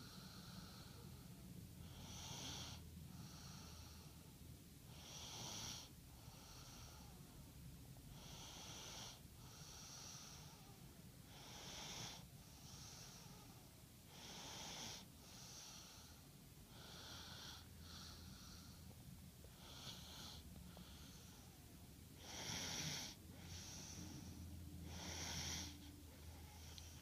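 Faint snoring: a breathy snore about every two and a half to three seconds, each a louder stroke followed by a softer one.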